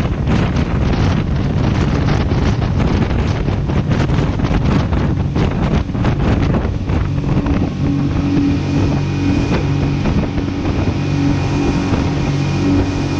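Speedboat running at speed over open water, with wind buffeting the microphone in gusts. From about halfway the steady drone of the boat's engines comes through more clearly.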